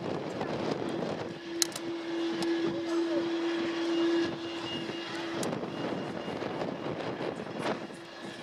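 Jet engines of an Airbus A330-200, General Electric CF6-80E1 turbofans, running at taxi power as the airliner taxis, with a steady whine that stops about five seconds in. Wind noise on the microphone rushes underneath.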